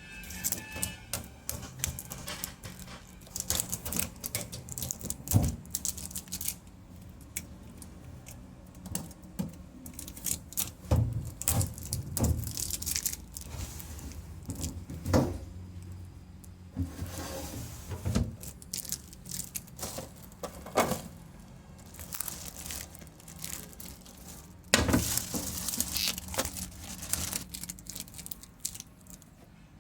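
Plastic packaging rustling, crinkling and tearing, with scattered knocks and clatter.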